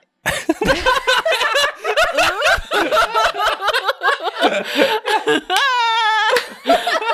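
People laughing hard in quick, broken bursts, with one long high-pitched laugh near the end.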